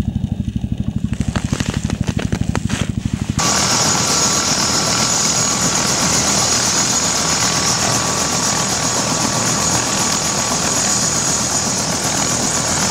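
Helicopter rotor beating in a fast, even chop. About three and a half seconds in it changes abruptly to a loud, steady rush with a high turbine whine from a helicopter running on the ground.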